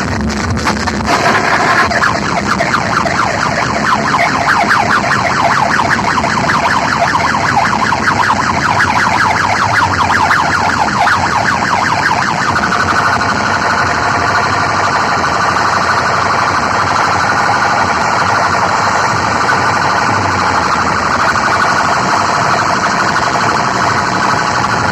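Siren-like electronic alarm effect played very loud through a DJ sound system, heavily distorted. A fast warble gives way to a steadier tone about halfway through.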